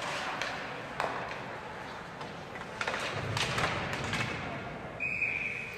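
Ice hockey game play: sharp knocks and clacks of sticks and puck over the murmur of the rink. A referee's whistle gives one short blast about five seconds in, signalling a stoppage in play.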